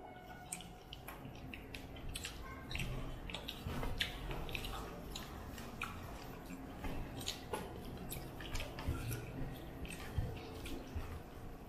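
Close-up eating sounds: chewing with small wet mouth clicks and smacks, and fingers mixing rice and curry on steel plates, in scattered short clicks.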